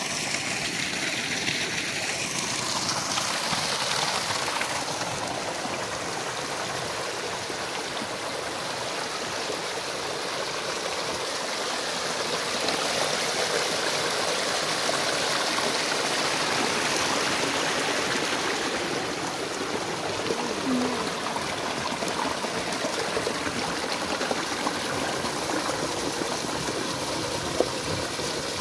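Small rocky stream running over stones and spilling down a little cascade into a shallow pool: a steady rush and splash of water.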